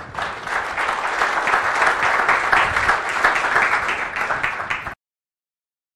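Audience applauding, a steady dense clapping of many hands that cuts off suddenly about five seconds in.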